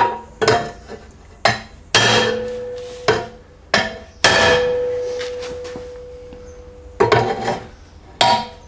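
A hammer striking the dented steel sleeve of a new exhaust silencer pipe, knocking it back into round over a former. About nine irregular blows, each ringing metallically; one blow about four seconds in rings on for a couple of seconds.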